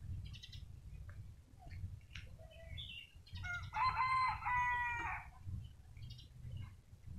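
A rooster crowing once, a pitched call of about a second and a half starting midway, over a steady low rumble and scattered short bird chirps.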